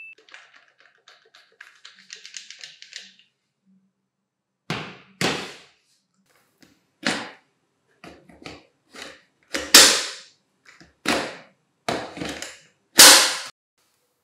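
Hard plastic clacks and slides as an 18 V lithium battery pack is worked onto and off a slide-on battery adapter fitted to a converted jigsaw. About ten sharp clacks come at uneven spacing, the loudest in the second half, after faint rapid ticking in the first few seconds.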